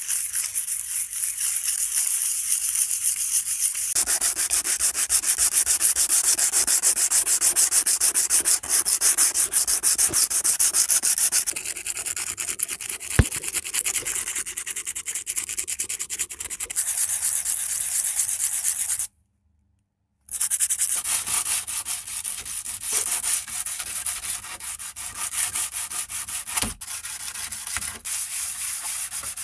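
Sandpaper rubbed by hand over metal parts, in quick back-and-forth scratchy strokes. The sound stops dead for about a second two-thirds of the way through, then the sanding goes on.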